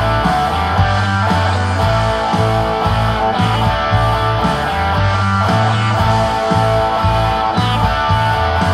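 2005 Gibson SG Standard electric guitar played through a Vox AC4TV valve amp, strumming a steady rock rhythm of chords.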